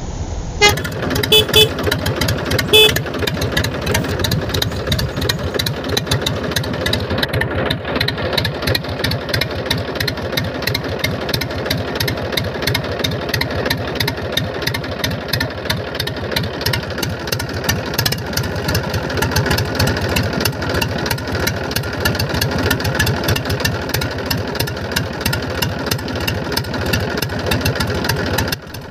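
Tractor diesel engine running with a rapid, even beat, with a few short horn toots in the first three seconds. The engine sound cuts off just before the end.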